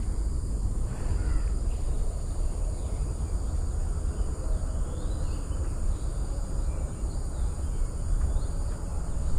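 Steady high-pitched insect chorus over a constant low rumble, with a few faint short chirps.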